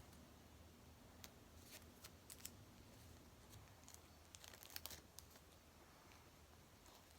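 Faint, scattered crinkles and clicks of a plastic bag and adhesive tape being handled as tape is laid over it, with a small cluster about four to five seconds in.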